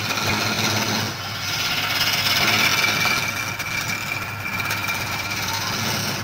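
Wood lathe running while a flat scraper cuts into the spinning wooden workpiece: a steady scraping hiss of shavings coming off over the machine's hum.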